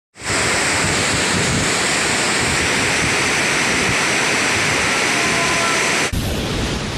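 Heavy rain pouring down, a loud steady hiss of downpour. It cuts off abruptly about six seconds in.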